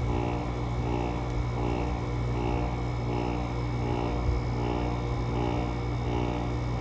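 GE 5050 BTU window air conditioner running: a steady drone from its Samsung rotary compressor and fan, with a rhythmic swell about twice a second. The compressor is running in 15°F cold and is still building head pressure.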